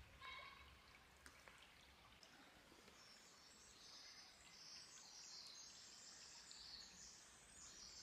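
Near silence: the faint trickle of a shallow forest stream over stones, with faint, high birdsong from about three seconds in.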